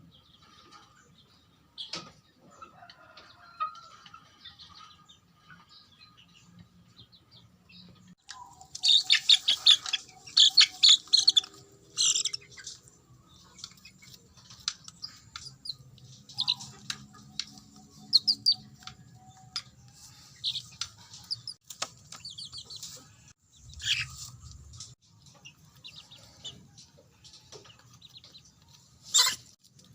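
Chickens calling: many short, high chirps and peeps, with a loud, dense run of them about nine to twelve seconds in and another burst near the end.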